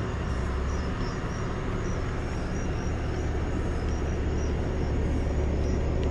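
Car engine running at low speed as the car reverses slowly: a steady low rumble that grows a little louder.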